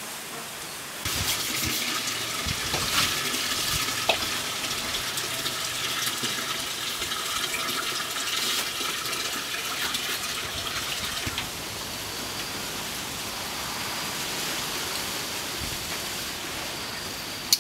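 Marinated squid skewers sizzling on a wire grill over glowing charcoal: a steady hiss with scattered crackles. It grows louder about a second in and eases back past the middle, with one sharp click near the end.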